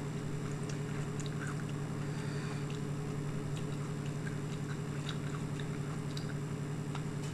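A person biting into and chewing a raw, unpeeled potato, with faint crunching clicks scattered over a steady low hum.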